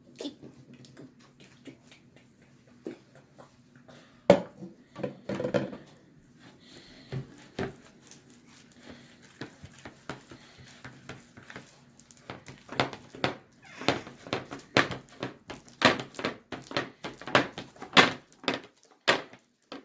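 Homemade slime being mixed by hand: a run of irregular wet clicks and taps, sparse at first and coming quicker and louder in the second half, over a faint steady hum.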